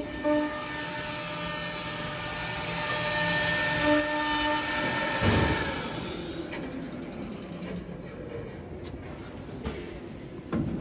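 Automatic door lock and hinge hole drilling machine at work: its cutter spindle runs with a steady whine while trimming the door edge, then winds down about five to six seconds in, leaving a quieter mechanical hum with light clicks as the machine moves on.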